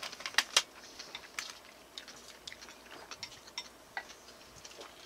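Eating sounds: irregular light clicks and taps of utensils against a dish, with chewing. Two sharper clicks come about half a second in.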